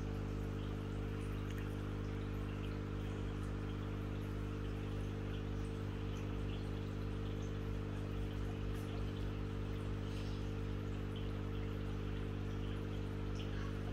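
A steady low hum made of several unchanging tones, under an even soft hiss, with a few faint ticks.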